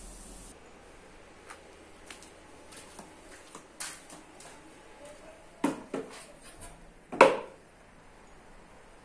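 Workshop handling sounds: scattered clicks and knocks of wood and hand tools moved about on a workbench, with two sharper knocks about six seconds in and the loudest knock just after seven seconds.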